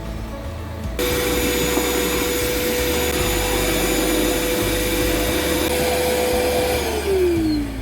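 Vacuum cleaner switched on about a second in and running steadily with a constant whine. Near the end it is switched off and the motor winds down, its pitch falling.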